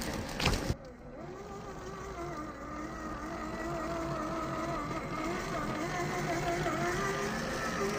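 Electric motor and gear whine of a 1/10-scale RGT Rescue LC70 RC crawler as it climbs over rocks, the whine wavering in pitch as the throttle and load change. A short loud clatter comes near the start.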